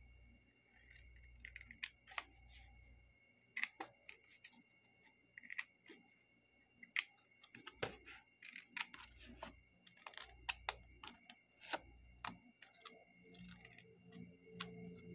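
Scissors cutting a sheet of patterned paper: a run of short, crisp, irregular snips, starting about a second and a half in.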